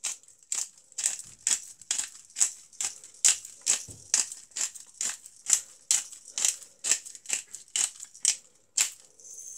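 Hand pepper mill grinding black peppercorns into a pan: a steady run of short crunching clicks, about three a second, that stops shortly before the end.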